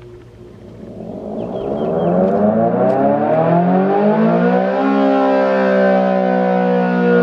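Outdoor warning siren starting its steady alert signal. Its pitch rises over about four seconds as it winds up, then holds as a loud, steady wail.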